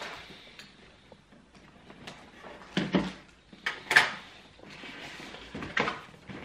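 Packaging of a boxed kit being handled and set down on a desk: a few sudden knocks and rustling scrapes, two close together about three seconds in, the loudest about a second later and another near the end.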